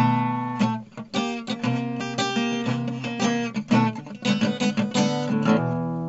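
Background music: acoustic guitar playing, plucked and strummed notes at a steady pace.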